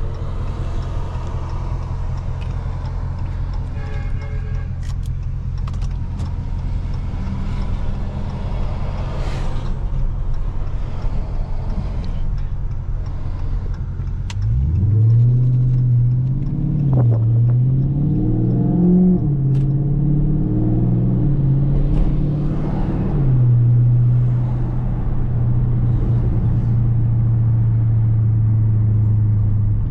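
2019 Dodge Charger Scat Pack's 6.4-litre HEMI V8 running at a low steady drone, then about halfway it gets louder as the car accelerates, its pitch rising and dipping a few times before settling into a steady, louder note.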